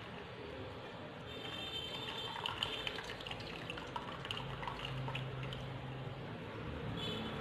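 Milk trickling and dripping through a plastic strainer into a steel bowl, with a few light clicks partway through.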